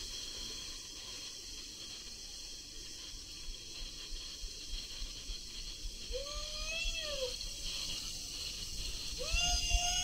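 Water rushing through an enclosed tube water slide as a rider slides down it, a steady hiss. A person's voice gives two long drawn-out calls, one about six seconds in and another starting near the end.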